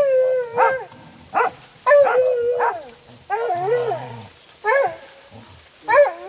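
Several hunting dogs baying at a burrow, with about seven drawn-out, wavering calls, some of them overlapping. The dogs have a lappe (paca) holed up in the burrow.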